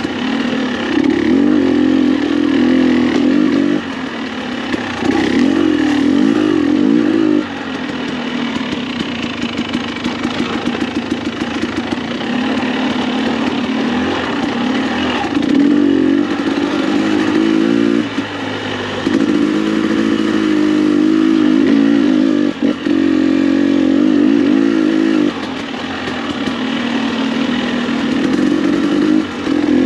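Single-cylinder two-stroke engine of a KTM 300 XC-W TPI dirt bike, exhausting through an FMF spark-arrestor muffler, under riding load. The throttle opens in loud bursts of a few seconds and rolls off between them.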